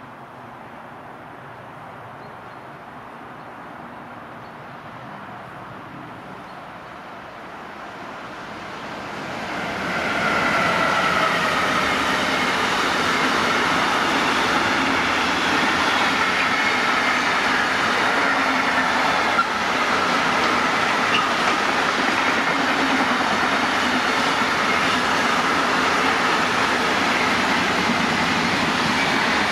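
Intermodal freight train with semi-trailers loaded on its wagons, approaching and then passing. It is faint at first and grows loud between about eight and ten seconds in. After that comes the steady running noise of the wagons on the rails, with high squealing tones over it.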